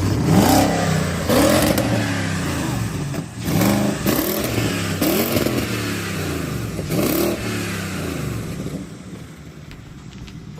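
BMW X5 engine revved through its freshly repaired exhaust in about five quick blips of the throttle, each rising and falling in pitch, then dropping back to a quieter idle near the end.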